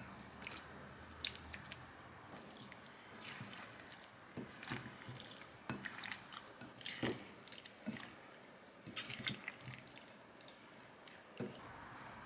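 Silicone spatula gently folding raw oysters, radish and red pepper seasoning in a glass mixing bowl: soft, wet squelching with irregular light clicks and taps.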